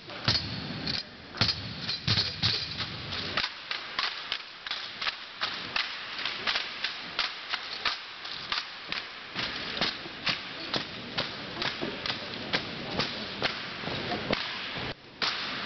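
Rifle drill team on a gym floor: drill rifles slapped and caught in the hands, and shoes striking the wooden floor, make sharp cracks that settle into a steady beat of about two a second.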